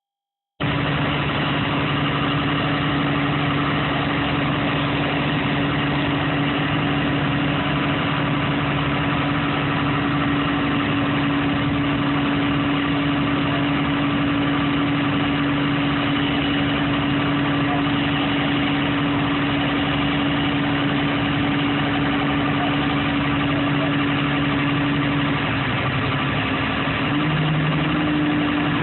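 An engine running steadily at idle, its pitch shifting slightly up and down near the end.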